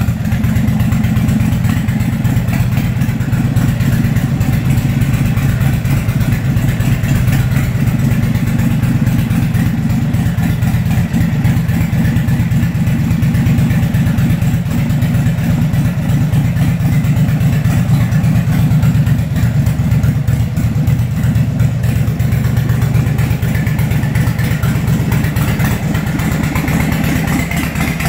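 Harley-Davidson Sportster Seventy-Two's air-cooled V-twin idling steadily, with a fast, even pulse of exhaust beats.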